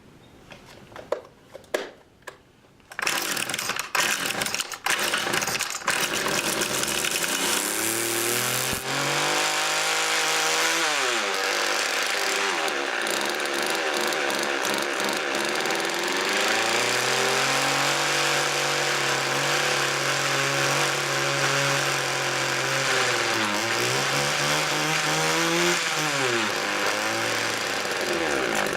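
Homelite two-stroke string trimmer pull-started several times. It catches and runs, revving up and down between stretches at a steady speed. The owner says it is not running right and takes it for running a little rich.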